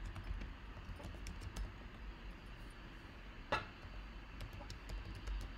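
Computer keyboard being typed on: scattered single keystrokes, with one louder key strike about three and a half seconds in, over a low steady hum.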